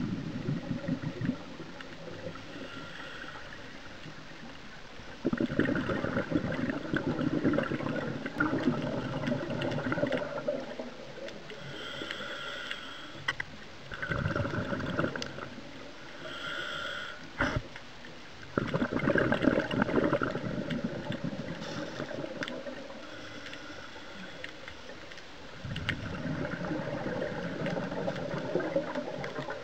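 Scuba regulator breathing underwater: exhaled bubbles gurgling past in repeated bursts a few seconds long, with quieter stretches between breaths.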